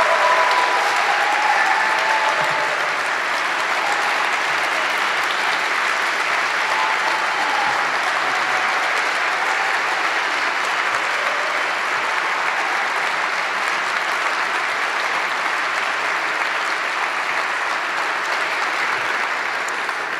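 Large audience applauding steadily, fading away near the end.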